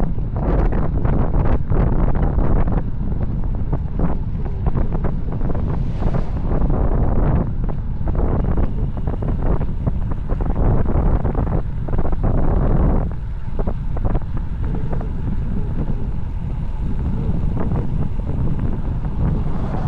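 Wind buffeting the camera microphone during a fast bicycle descent: a loud, steady low rumble with rapid, uneven flutter.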